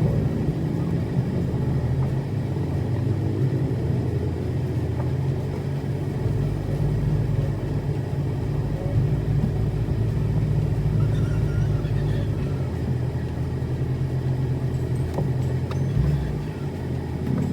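Car engine running, a steady low rumble.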